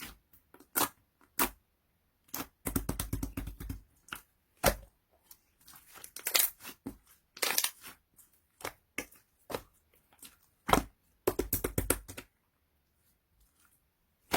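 Clear slime being squished and pressed by hand, giving bursts of quick wet clicks and pops in clusters with short pauses between them, falling quiet for a couple of seconds near the end.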